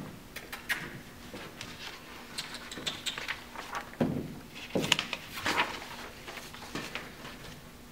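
Irregular light clicks and soft knocks of a labradoodle puppy's claws and paws on a hardwood floor as it moves around a rope toy, with a couple of heavier knocks about four and five seconds in.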